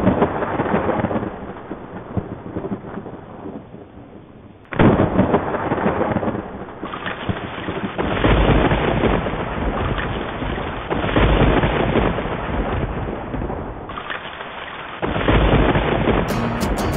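Thunderstorm: two sharp thunder cracks, at the start and about five seconds in, followed by long rolling rumbles over steady rain. A strummed guitar comes in near the end.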